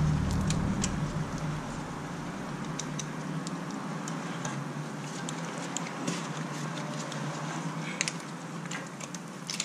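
Scattered light metallic clicks and ticks of a hand tool working at the hub of a new front brake rotor, over a low steady hum that is stronger in the first second or two.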